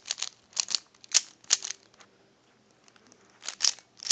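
Plastic Rubik's cube layers being turned through a solving algorithm: a run of sharp clacks over the first second and a half, a pause of about two seconds, then more clacks near the end.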